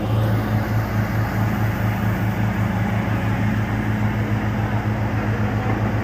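Borewell drilling rig running: a steady engine hum with a fast pulsing low throb, over a continuous rushing hiss.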